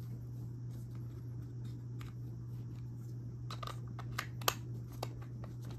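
Scattered light clicks and taps, a few of them sharper in the second half, over a steady low hum.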